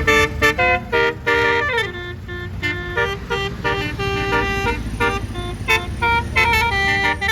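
Bus basuri telolet air horn playing a fast melody of short stepped notes, with a falling slide about a second and a half in, over a low engine rumble.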